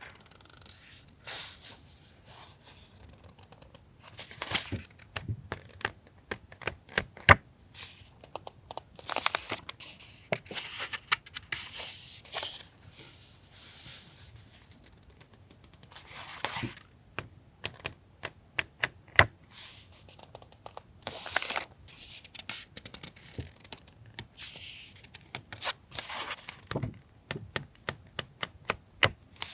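Paper stationery and plastic packaging handled on a desk: rustling and crinkling swishes mixed with many small clicks and taps.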